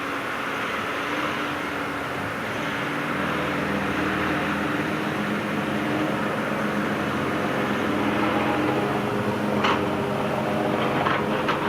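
Diesel engine of heavy earthmoving machinery running steadily and growing a little louder, with a few short, sharp sounds near the end.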